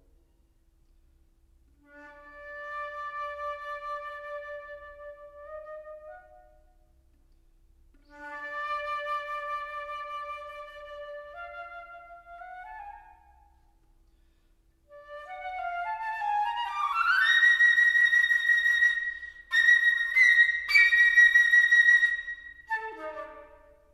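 Solo flute playing three phrases: two held low notes, each stepping upward at the end, with short pauses between them; then a climb to a loud, long high note, broken briefly a few times, followed by a quick descending run near the end.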